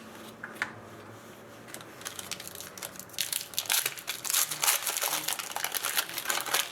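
Plastic wrapper of a hockey card pack being torn open and crumpled by hand, a dense crinkling that builds from about two seconds in and is loudest in the second half.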